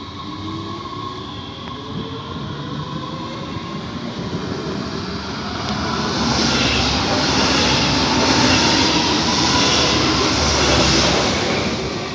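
Stuttgart S-Bahn electric multiple unit pulling away close by, its traction motors giving a steadily rising whine. About six seconds in, a regional double-deck push-pull train passes at speed on the next track: loud wheel and rail noise, the loudest part, fading near the end.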